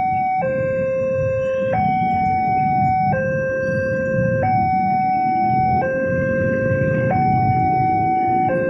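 Level-crossing warning alarm sounding a two-tone hi-lo signal: a lower and a higher steady tone alternate, each held about a second and a third, warning that a train is coming.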